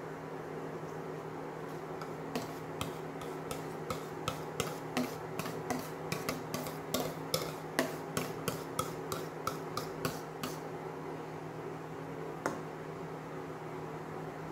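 A whisk scraping and tapping against a bowl as thick flan custard is scraped out into a saucepan: a run of light clicks, about three a second, from about two seconds in until about ten seconds, then one more tap. Under it the steady hum of an induction hob's cooling fan.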